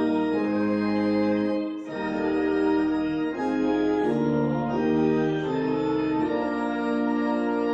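Organ playing slow, sustained chords that change every second or two, like a hymn.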